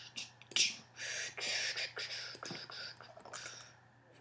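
A sharp click, then soft breathy whispering close to the microphone that fades out near the end.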